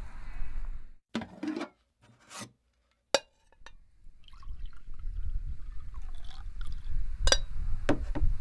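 City street ambience with a low traffic rumble. It cuts out about a second in, leaving near silence broken by a few short, sharp clicks, then fades back in from about four seconds, with more sharp clicks near the end.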